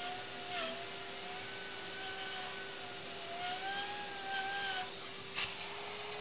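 Vacuum cleaner with a short nozzle running steadily, its whine wavering in pitch as the airflow changes, while cleaning dust out of a computer. Several short scraping rattles come as the nozzle rubs over the parts inside the case.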